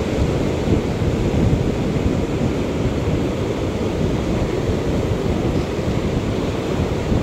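Sea surf washing over shore rocks, with wind buffeting the microphone: a steady, heavy rush, strongest in the low end.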